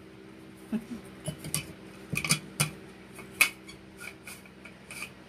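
Light clinks and clicks of a small glass jar and its plastic cap being handled and set on a table, a scattered run of short knocks with a few louder ones in the middle.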